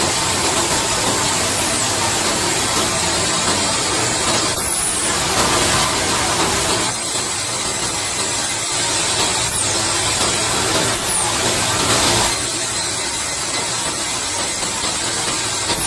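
Sawmill band saw running as its vertical blade cuts lengthwise through a squared log, a steady loud machine noise.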